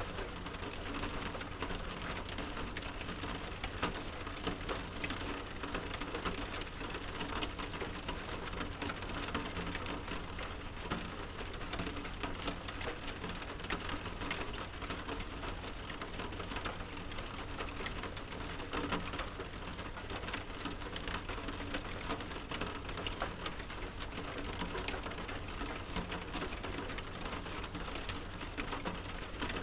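Rain pattering steadily on a window pane, a dense stream of fine drop ticks with a low steady rumble beneath.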